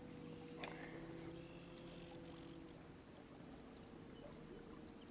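Near silence: a faint steady hum under low background noise, with one light click about two-thirds of a second in.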